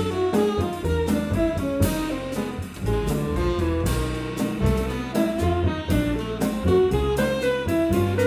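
Live avant-garde jazz from a quartet. A tenor saxophone plays a moving melodic line over walking double bass, piano and a drum kit, with many quick cymbal and drum strokes.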